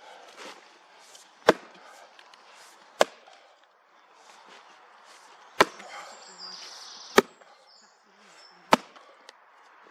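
Five sharp blows of a splitting tool striking a log as firewood is split, spaced about one and a half seconds apart.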